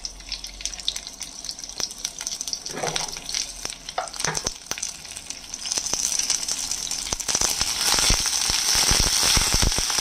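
Onion pieces and cumin seeds frying in hot oil in a kadai: a sizzle with crackling pops that builds about six seconds in and grows louder toward the end.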